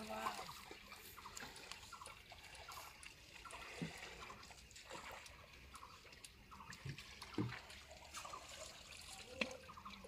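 Faint trickling and dripping of shallow river water at the bank's edge, with a few small splashes.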